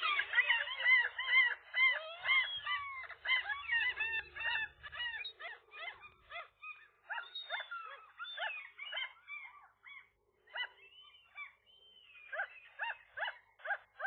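Common gulls calling: many overlapping high, arched mewing calls at first, thinning out midway, then a regular series of calls about three a second near the end.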